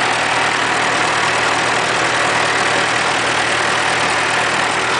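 1943 M5 military generator's four-cylinder water-cooled Hercules ZXB engine running steadily at its governed 1200 rpm, turning a Hobart generator head that is powering plugged-in lamps.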